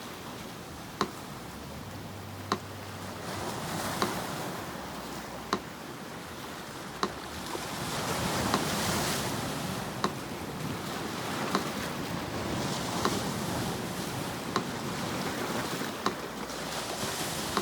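Sea surf washing in and receding in slow swells, with a metronome ticking steadily about once every second and a half.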